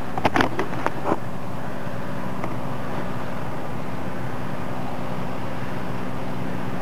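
Steady low engine drone of fire apparatus running at the scene, with a quick cluster of sharp cracks and pops about a second in.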